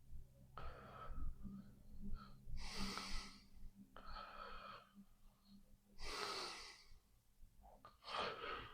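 A sleeping person breathing, about five noisy breaths in and out, one every one and a half to two seconds.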